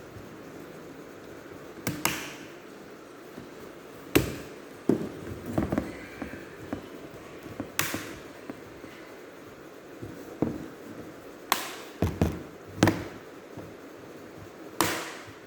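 Irregular sharp clicks, taps and knocks of laptop parts being handled and worked on by hand during disassembly, about a dozen spread unevenly, some with a brief scraping hiss.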